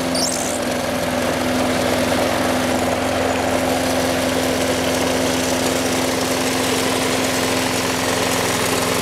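Snapper 21-inch Hi-Vac lawn mower's Briggs & Stratton OHV engine running steadily at a constant speed.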